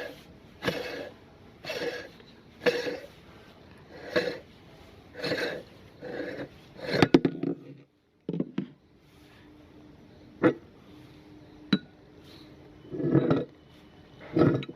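Meat grinder working an item through, making squelching, crunching bursts about once a second. Then a few sharp cracks and clicks, and two longer bursts near the end.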